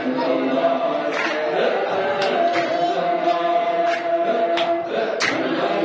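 A group of men chanting a Sammaniyah Sufi dhikr together, many voices holding long notes that shift slowly in pitch. A few brief sharp sounds cut across the chant.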